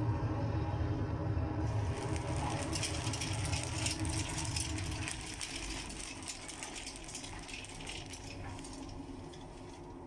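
Pellet burner of a wood-pellet combi boiler running: a low roar of flame and fan that fades about five seconds in. From about two seconds in, a dense crackling rattle lies over it and dies away near the end.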